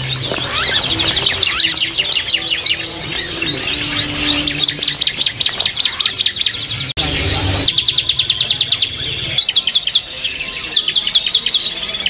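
Young caged songbirds chirping: rapid runs of high, sharp chirps in bursts of about a second, repeating every couple of seconds, with other birds calling in between.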